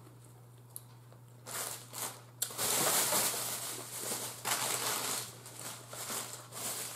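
Thin plastic takeout bag being handled and crinkled: irregular rustling that starts about a second and a half in and is loudest around the middle.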